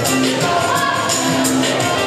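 Children's choir singing a song in unison over accompaniment, holding long notes, with crisp percussion strikes keeping the beat.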